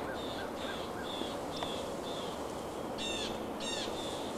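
Birds calling outdoors: a steady run of short, high chirps, about two or three a second, joined about three seconds in by two louder, harsher calls.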